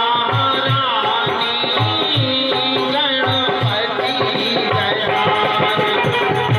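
Instrumental passage of a Bundeli devotional folk song: a hand drum beats a steady rhythm of about three strokes a second under a gliding melody and sustained instrumental tones.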